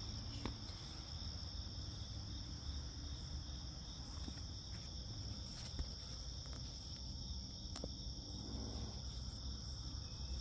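Steady insect chorus in woodland, a continuous high trill at two steady pitches, over a low steady rumble, with a few faint clicks.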